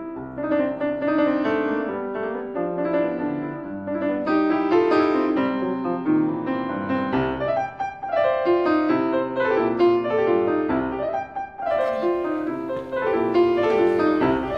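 Background piano music: a steady melody of struck notes.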